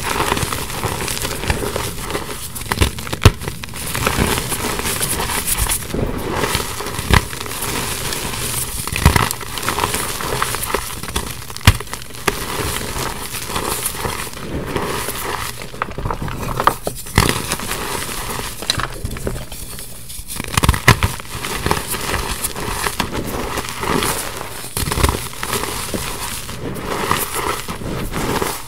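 Hands crumbling and squeezing pressed gym chalk into loose powder: a continuous dry crunching and crackling, with frequent sharp snaps as chunks break apart.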